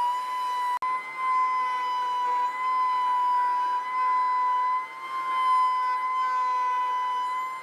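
Table-mounted wood router running at a steady high whine while a chamfer bit cuts a bevel on the edge of a round wooden disc, the loudness rising and dipping as the cut goes on. The sound cuts out for an instant just under a second in.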